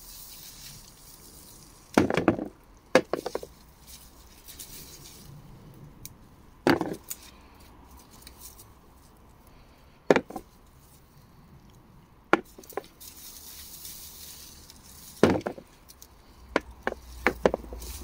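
Potato plant stems being pulled up by hand, snapping and rustling. There are sharp cracks every few seconds, coming closer together near the end.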